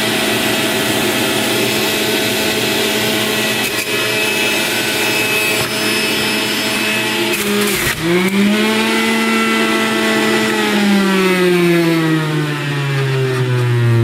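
Breville Juice Fountain Elite centrifugal juicer, a two-speed 1000-watt machine, running at high speed with a steady motor whine as hard produce such as beets and apples is pushed through the feed tube onto the spinning blade. About eight seconds in, as the plunger forces food down, the pitch dips sharply under the load and then recovers. Over the last few seconds the pitch sinks steadily as the motor slows.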